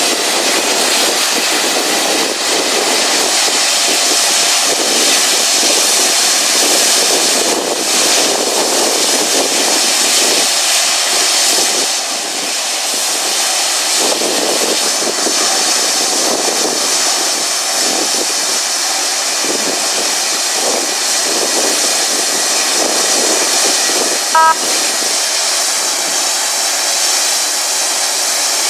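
Steady jet aircraft engine noise, an even rushing hiss with little deep rumble. A short electronic beep sounds once near the end.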